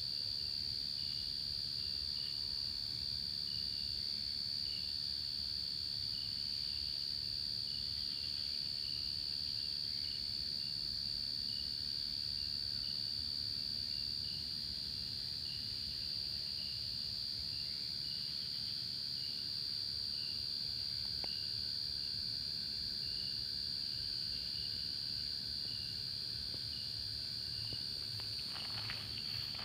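Crickets chirring in one steady, unbroken high-pitched drone, with a lower chirp repeating at an even pace beneath it.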